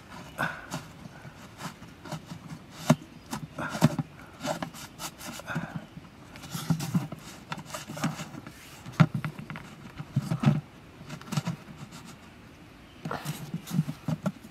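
Hands working a corrugated cardboard disc and a thin metal rod against the rim of a plastic bucket: scattered taps, clicks and scrapes, with short bouts of rubbing.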